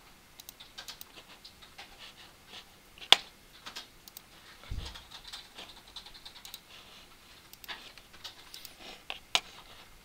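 Scattered computer mouse clicks, one sharp loud click about three seconds in and another near the end, with a brief low thump near the middle.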